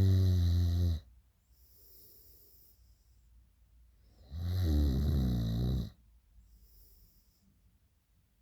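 A person snoring in their sleep. One loud, low snore ends about a second in, then comes a quieter breath, and a second loud snore lasts about a second and a half around the middle, followed by another faint breath.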